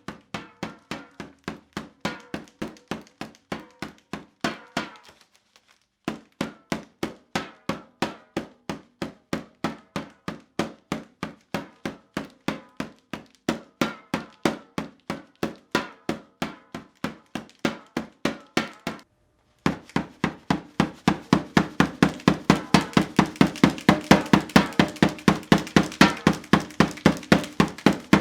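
A pair of inflatable plastic thunder sticks banged together in a steady rapid rhythm, about three bangs a second. The beating stops briefly twice and gets louder in the last third.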